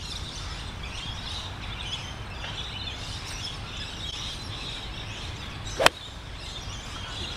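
A golf club striking a ball on a tee shot: one sharp crack about six seconds in. Wind rumbles on the microphone throughout, with birds chirping.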